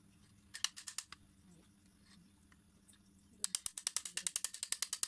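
Small sharp clicks from a car door handle's release rod and coil spring being worked by hand. A few clicks come about half a second in, then a fast even run of about fourteen a second near the end.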